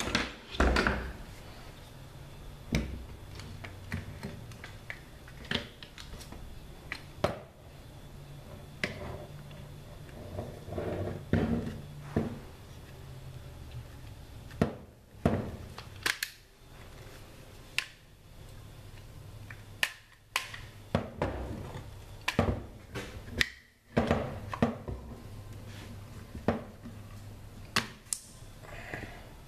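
Irregular sharp clicks and knocks of a Bushmaster Carbon 15 rifle being reassembled by hand, its polymer upper and lower receivers and other parts clacking together as they are fitted.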